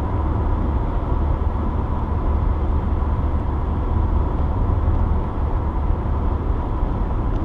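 Steady road noise of a car driving at highway speed, heard from inside the cabin: a constant low rumble of tyres and engine with a faint steady hum.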